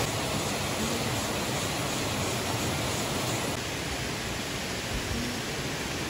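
Steady rushing of water pouring over a rocky river cascade.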